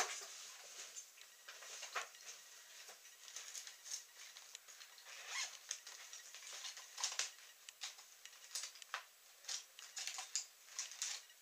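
A sharp knock right at the start, then irregular light clicks and brief rustles of hands rummaging through a small fabric case.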